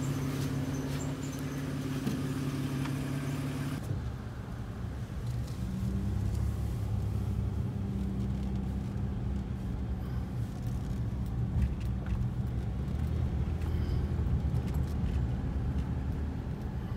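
Vehicle engine and road noise heard from inside while driving: a steady hum for the first few seconds, then a lower, rougher rumble from about four seconds in.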